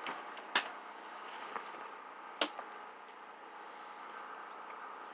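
Northern cardinal striking and pecking at a window pane: two sharp taps about two seconds apart, with a few lighter knocks, over a steady background hiss.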